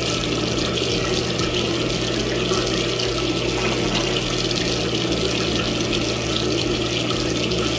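Tap water running steadily into a sink, with a steady low hum under it.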